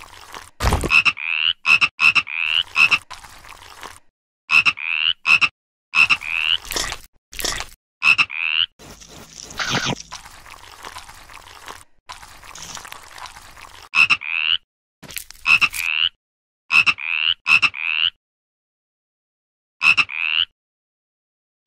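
Frog croaking in short calls, each a quick rising note, coming in quick runs of two to four with brief gaps between runs, and a pause of about two seconds near the end.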